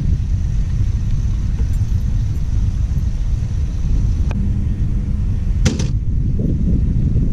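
Wind buffeting an action-camera microphone, a loud low rumble that rises and falls. A click sounds about four seconds in, and a sharp crackle about a second and a half later.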